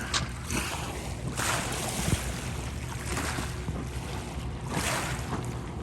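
Wind gusting on the microphone, swelling and fading every second or two, over the low steady hum of a motorboat towing people on a tube.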